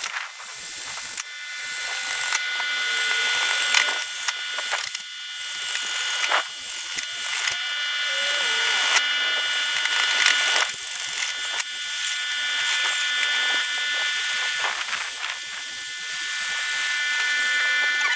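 Power drill with a masonry bit boring into a brick and concrete-block wall: the motor whines steadily over a gritty grinding, with irregular sharp knocks as the bit bites.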